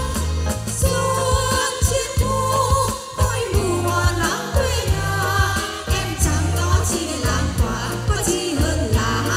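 Female singers performing a Vietnamese song live through microphones, backed by a live band of drums, bass, guitars and keyboard playing a steady beat. The sung melody comes in clearly about three and a half seconds in.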